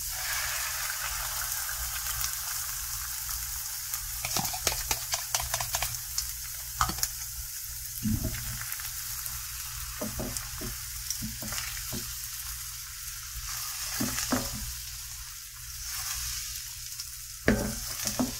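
Beaten eggs and cream sizzling steadily in a hot buttered skillet of browning garlic, onion and jalapeño, with scattered short taps and scrapes of a utensil against the bowl and pan.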